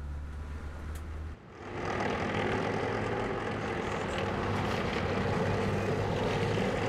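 A low steady hum, then after a cut about a second and a half in, louder steady running of armoured personnel carrier engines.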